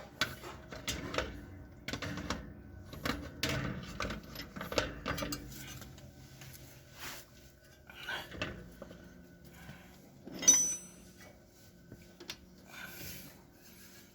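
Metal tools and parts clinking and clattering, then one sharp hammer blow on steel about ten seconds in that rings briefly. The blow is struck to free a rust-seized part of the front wheel assembly.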